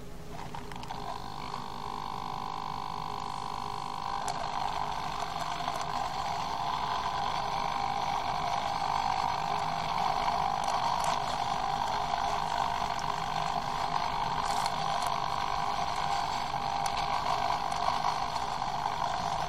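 Hobby servos of a hexapod robot giving a steady electric whine, which fills out about four seconds in and slowly grows louder.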